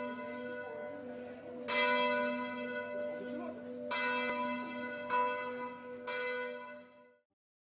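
Church bell ringing, struck four times, each stroke ringing on over the last before it dies away near the end.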